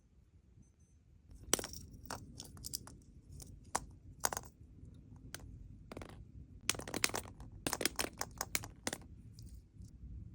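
Small packaging handled and opened by hand: a run of irregular sharp clicks, taps and crinkles, busiest near the end.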